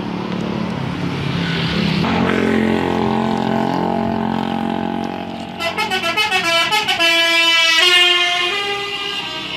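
A bus engine running, then about six seconds in a telolet multi-tone musical horn plays a quick run of stepped notes followed by held chords.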